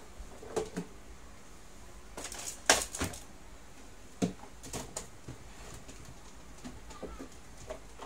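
Food containers and packets being put away in an open refrigerator: scattered short knocks, clicks and rattles of plastic against the shelves and door racks, the loudest a little under three seconds in.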